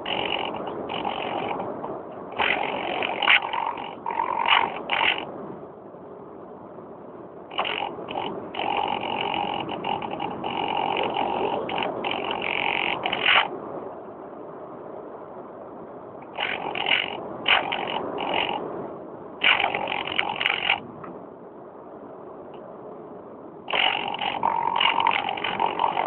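Electric motor and propeller of an EasyStar RC model plane, heard from a phone carried on board, whining in on-off bursts of throttle of a second to several seconds each. Between the bursts there is a rushing wind noise while the plane glides.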